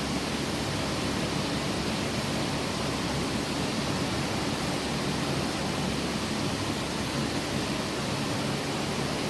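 Steady, even mechanical noise with a faint low hum from a pallet stretch-wrapping machine running.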